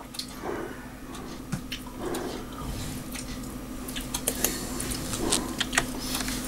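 Computer keyboard being typed on: scattered sharp key clicks, coming faster and closer together in the second half, over a steady low electrical hum.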